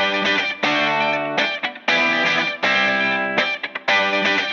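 Background music: electric guitar strumming chords in a steady rhythm, each chord block broken off by a short gap.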